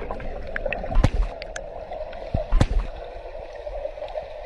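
Muffled gurgling of air bubbles and water, picked up by a camera held underwater in a swimming pool as a swimmer breathes out. There are a few dull thumps about a second in and again about two and a half seconds in.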